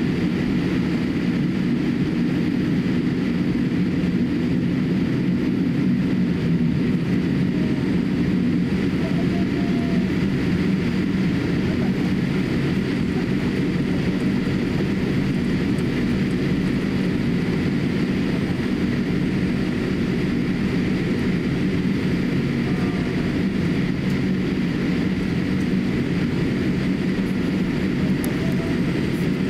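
Cabin noise of a Boeing 787-8 taxiing: a steady low rumble from the engines and the rolling aircraft, with a faint steady hum through it.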